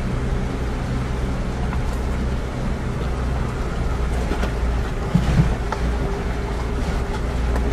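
Vehicle engine running and the cab rumbling as it drives slowly up a rough dirt mountain road, heard from inside the cab, with scattered small rattles and a brief louder knock about five seconds in.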